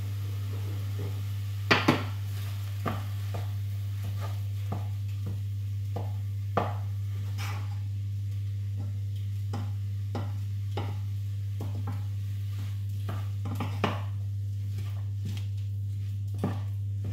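Wooden spoon stirring and breaking up mince in metal pans, with scattered knocks and scrapes against the pan sides, the loudest a quick pair about two seconds in. A steady low hum runs underneath.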